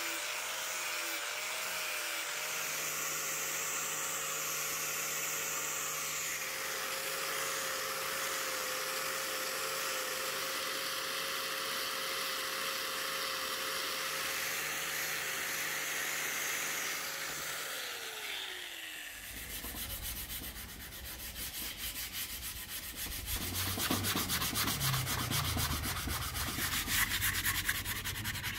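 Electric angle grinder with a sanding pad running steadily against a wooden axe handle, its motor winding down and stopping about two-thirds of the way in. Then a sanding disc is rubbed by hand along the wood in rapid rasping strokes, getting louder near the end.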